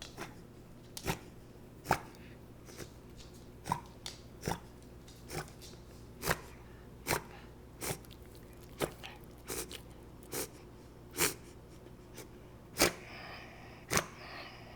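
A beagle with bronchitis making a string of short, sharp clicking mouth and throat noises, irregularly about once a second. Near the end comes a drawn-out wheezy breath lasting about a second and a half, a sign of her bronchitis.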